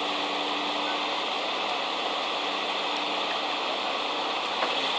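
Caterpillar tracked excavator's diesel engine running steadily under load as it lifts, heard as an even hissing noise with a faint low hum.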